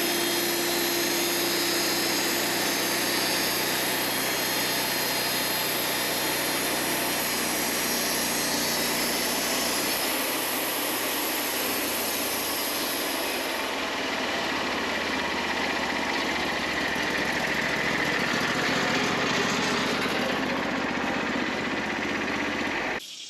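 Wood-Mizer LT40 band sawmill running steadily as its blade cuts through a hardwood log; the sound cuts off abruptly near the end.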